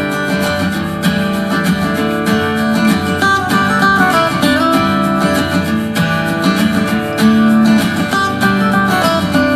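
Music with a strummed acoustic guitar, played through a TCL S642W 2.1 soundbar and picked up by a microphone in the room.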